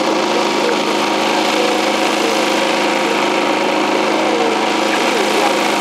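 Small engine on a fishing boat running steadily at constant speed, an even drone.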